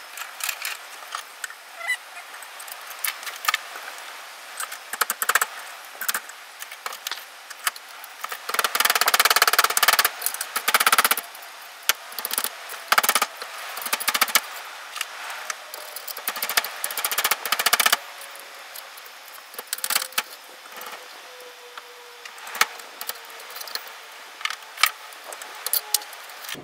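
Perforated galvanised steel strapping clinking, clicking and rattling as it is uncoiled and worked with hand tools into a pea clip. There is a busy stretch of clattering about nine to eleven seconds in.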